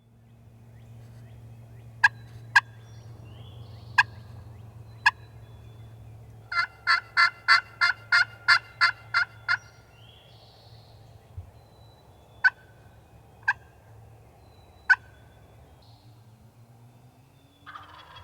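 Turkey call imitating a hen: a few sharp single clucks, then a run of about ten evenly spaced yelps, then three more single clucks, all close and loud. A steady low hum runs underneath.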